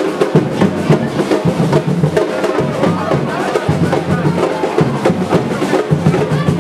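Drums and percussion beating in a dense, continuous rhythm, with voices mixed in underneath.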